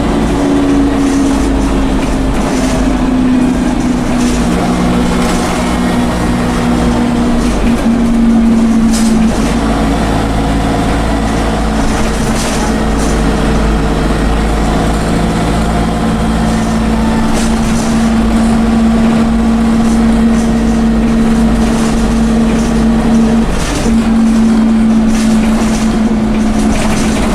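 Dennis Dart bus's Cummins diesel running under way with turbo whine, over a steady low drone. The engine note shifts in steps about 8 seconds in and again near 23 seconds, with scattered rattles throughout.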